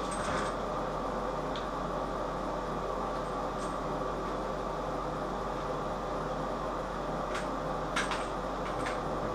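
Steady hum of a fan running in a small room, with a few light clicks as plastic bidet parts and fittings are handled.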